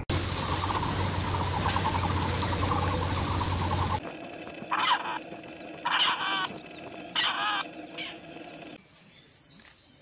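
A loud dense hiss-like noise for about four seconds that cuts off abruptly, then a grey partridge calling three times, each call a short grating run of quickly repeated notes.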